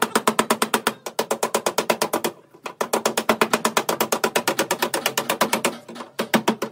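A hammer rapidly beating metal, about ten blows a second, in runs broken by short pauses about one second, two and a half seconds and six seconds in.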